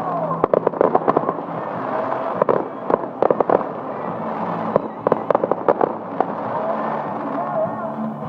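Fireworks crackling: rapid clusters of sharp pops in several bursts, with a lull between them.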